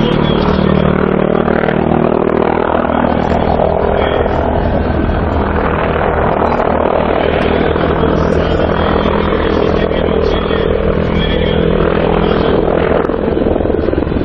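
Mi-28N attack helicopter flying a low display pass, its rotor and turboshaft engines making a steady, loud noise with a low hum running underneath.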